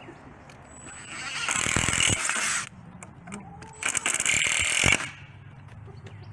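Cordless drill driving screws through a wooden board into a wooden post, in two runs: the first builds up about a second in and lasts under two seconds, the second comes about four seconds in and lasts about a second.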